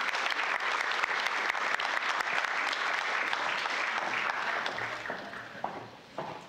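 Audience applauding, a dense mass of hand claps that fades away about five seconds in.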